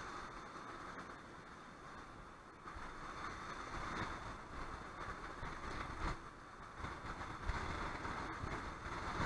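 Sea waves breaking and washing over shore rocks, a steady rushing surf that swells and eases, with a few heavier low knocks from about six seconds in. Wind rumbles on the microphone underneath.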